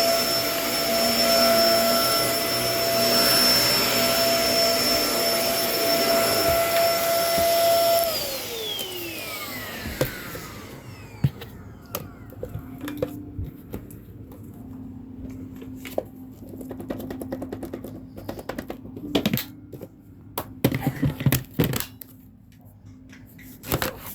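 Kenmore vacuum cleaner running steadily, then switched off about a third of the way in, its motor whine falling in pitch as it spins down over two or three seconds. Scattered clicks and knocks follow.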